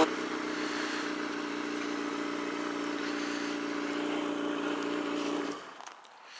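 Yamaha motorcycle engine settling to a steady idle as the throttle closes, then switched off about five and a half seconds in.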